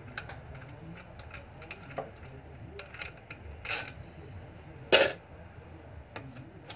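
Small metallic clicks and a brief scrape of a socket and extension being worked by hand on bolts of a 12.5 hp mower engine, with one sharp metal clack about five seconds in.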